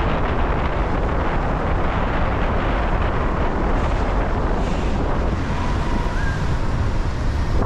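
Steady rush of wind on the microphone mixed with traffic and tyre noise from a car driving along a wet city street.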